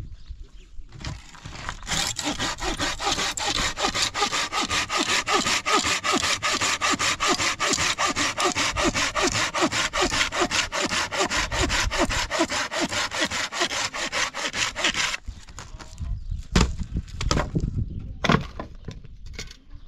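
A saw cutting wood with fast, even back-and-forth strokes, several a second, starting about two seconds in and stopping about two-thirds of the way through; a few sharp knocks follow near the end.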